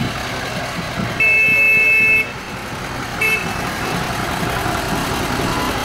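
Small narrow-gauge diesel locomotive sounding its horn: one steady blast about a second long, then a short toot, with the engine running underneath as it approaches.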